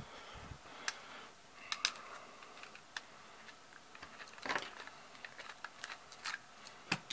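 Scattered light clicks and taps of small metal revolver parts being handled and worked loose by hand, with a slightly heavier rattle of clicks about four and a half seconds in.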